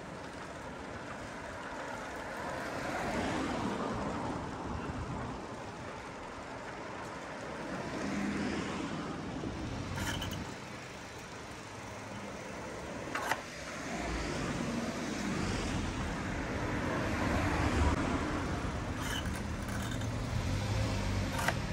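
Street traffic noise, with cars passing in several slow swells of sound. A sharp click comes a little past the middle, and a few fainter ticks come near the end.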